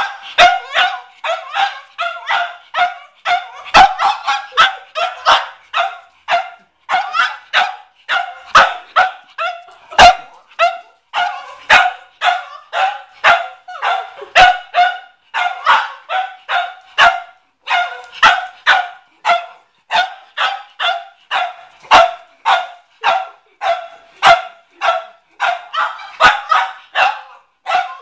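Cavalier King Charles Spaniel barking at a watermelon: short barks repeated about twice a second, in bouts broken by brief pauses.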